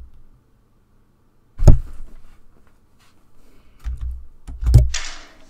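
Knocks and clicks from a computer desk near the microphone: one sharp knock about a second and a half in, a few faint clicks, then two softer thumps and a short breathy hiss near the end.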